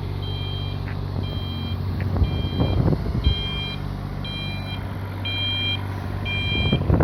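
Excavator's warning alarm beeping about once a second over its steady running engine, with some clattering a couple of seconds in.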